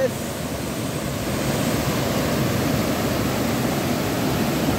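A swollen, muddy river in flood after heavy rain, rushing and churning over boulders in a steady noise.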